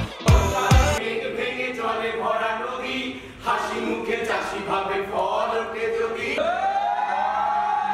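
A group of voices chanting and singing together, unaccompanied, going into one long held note, first rising and then level, about six and a half seconds in. In the first second a pop track with a heavy beat cuts off.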